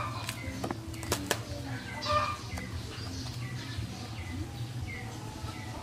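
Disposable diaper rustling and crackling as it is fastened and adjusted on a baby monkey, with a few sharp clicks about a second in. Short high chirps recur every second or so over a steady low hum.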